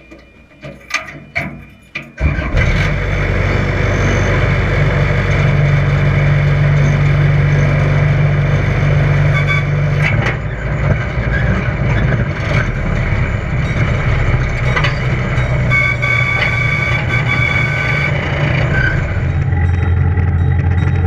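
Amusement-park ride train's engine running: about two seconds in, a loud steady drone with a low hum starts suddenly and carries on as the train pulls away.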